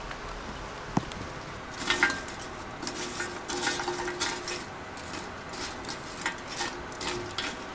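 Lumps of burning charcoal clinking and scraping against each other in a metal grill as a wooden stick pokes and stirs them, starting about two seconds in as a quick run of light clinks.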